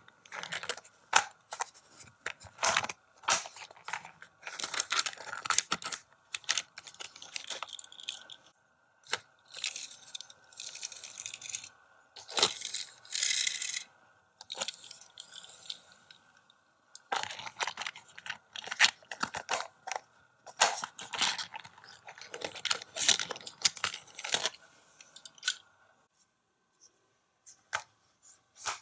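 Hot Wheels die-cast cars and a plastic playset being played with: cars rolling and clacking along the plastic track, with irregular clicks, scrapes and rattles as the plastic parts are moved and the set is folded shut. The sounds come in clusters with short gaps and thin out for a couple of seconds near the end.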